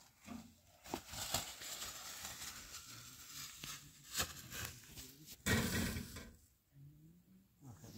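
Plastic grocery bags rustling and crinkling as bagged fruit is handled, with a few sharp knocks, and a louder rustling burst about five and a half seconds in.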